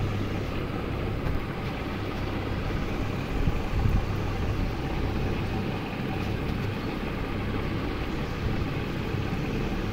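Aquarium filter running: a steady low hum with a constant rushing noise behind it.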